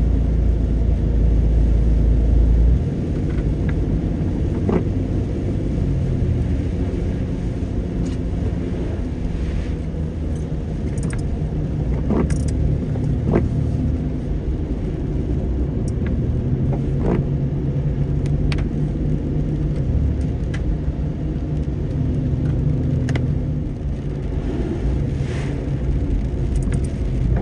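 Car driving on a wet road, heard from inside the cabin: a steady engine and road rumble, very heavy in the low end for the first few seconds and then easing, with a few sharp clicks here and there.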